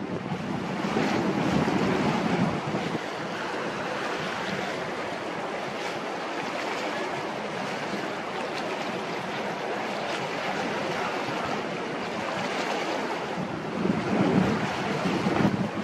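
Wind buffeting the microphone over a steady rush of wind and harbour water, with stronger gusts about a second in and again near the end.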